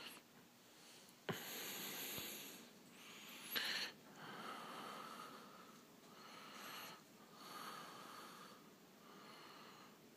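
Faint, slow breathing close to the microphone, each breath about a second long, with two brief sharp handling noises, one about a second in and one a little before four seconds.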